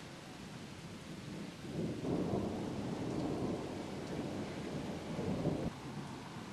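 Thunder rolling from a nearby lightning strike: a low rumble begins about two seconds in, swells for about four seconds and stops abruptly near the end, over a steady hiss.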